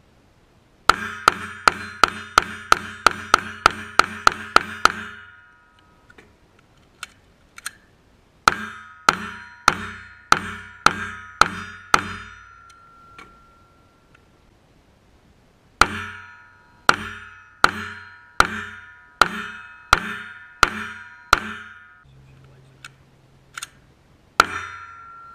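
Glock 17 9mm pistol fired in three rapid strings of about a dozen, nine and ten shots, then a few single shots near the end. Each hit rings the steel targets with a clear metallic ring.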